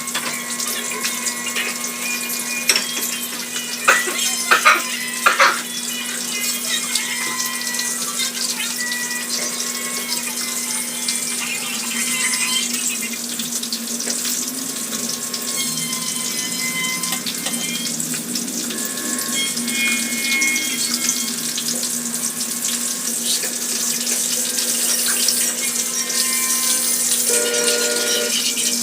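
Water running steadily from a kitchen tap, with a few sharp clatters about four to five seconds in.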